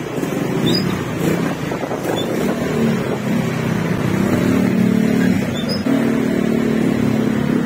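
Small motor scooter engine running close by, a steady hum that grows stronger in the second half.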